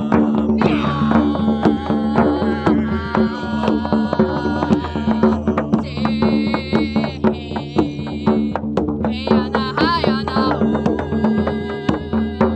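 Improvised sound-healing music: a hand drum struck in a fast, even rhythm over a steady held drone, with wordless singing that glides and wavers in pitch.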